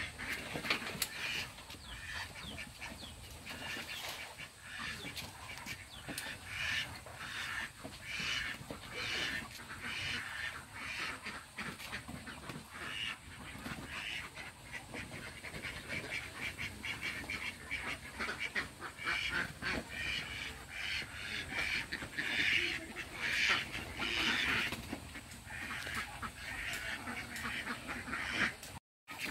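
A flock of egg-laying ducks quacking: many short, overlapping calls that go on without a break and grow busier in the second half.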